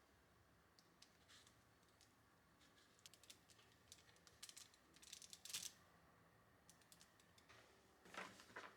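Faint kitchen work sounds: scattered light clicks and taps, thickest in the middle, with a short scraping rustle near the end.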